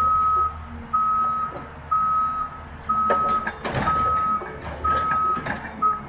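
John Deere forwarder's reversing alarm beeping in a single steady tone about once a second, over the low hum of its diesel engine. In the second half, a run of knocks and clatter from the crane and logs.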